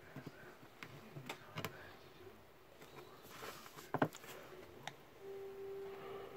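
Scattered small clicks and taps as a small carving tool works and a linoleum block is handled, the loudest about four seconds in. A steady hum starts about five seconds in.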